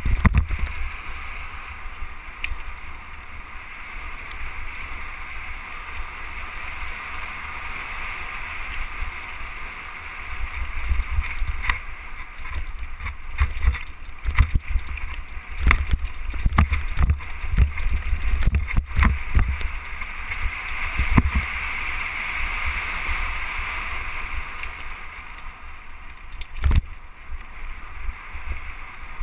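Mountain bike riding fast over a leaf-covered dirt trail, heard from a handlebar-mounted camera: steady low wind rumble and tyre noise over the leaves and dirt, with rattling knocks from bumps in the trail, busiest in the middle, and one sharp knock near the end.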